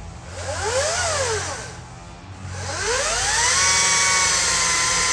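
Chainsaw engine revved: a short rev that rises and drops back about a second in, then revved up again and held at high speed.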